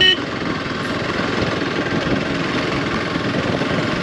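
Small motorcycle engine running steadily while riding over a rough stony track, heard from the rider's seat. A horn beep cuts off just as it begins.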